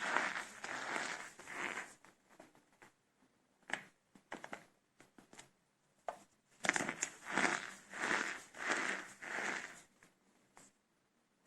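Brittle soap cups made with starch being crushed and crumbled by hand, a dry crunching and crackling. It comes in two bouts, with a few single cracks in the lull between them.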